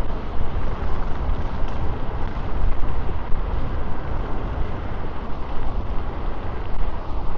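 Steady wind rumble and road noise from riding an electric scooter, picked up by a lavalier mic clipped to the rider's shirt, heaviest in the low end and fluttering in level.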